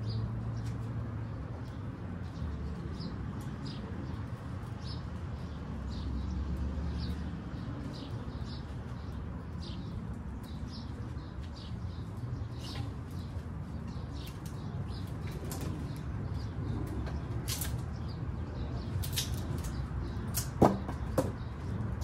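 Birds chirping again and again in short, high notes over a steady low outdoor background hum. A little before the end come two sharp knocks, the loudest sounds.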